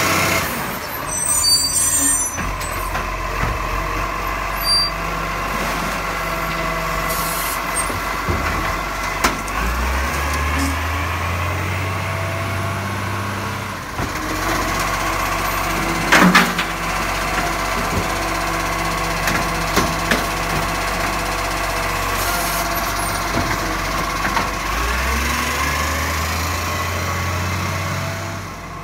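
Iveco side-loader garbage truck running in steady diesel rumble, with a constant high whine on top. The engine speed picks up twice as the truck works, and a brief sharp noise comes about halfway through.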